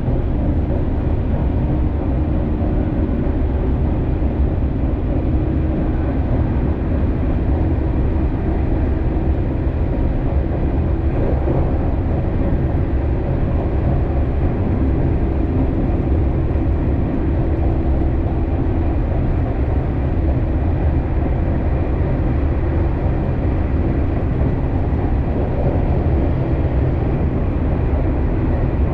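Keisei Skyliner express train running at speed, heard from inside the passenger car: a steady low rumble of wheels on rail and running noise.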